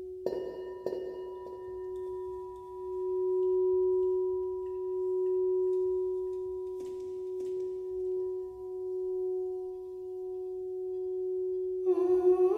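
Gold crystal singing bowl struck with a padded mallet: two strokes just after the start and another about seven seconds in. Between strokes the bowl rings on in one steady tone that slowly swells and fades. A voice joins near the end.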